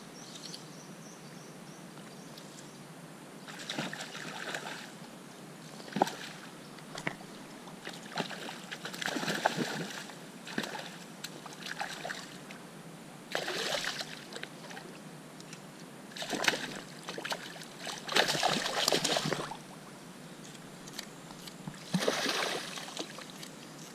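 A hooked trout splashing and thrashing at the water's surface while being played on a fly line, in repeated bursts about one to three seconds apart.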